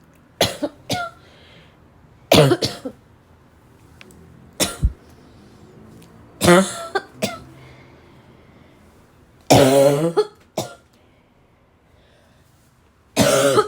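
A woman's barking coughs, coming in short bouts of one to three coughs about every two to three seconds, some of them voiced and hoarse.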